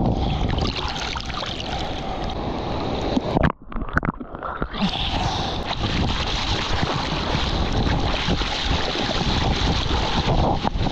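Wind buffeting a GoPro's microphone at the waterline, with sea water sloshing and splashing right against the camera. About three and a half seconds in, the sound drops to a muffled quiet for about a second as the camera dips under the surface, then the wind and splashing return.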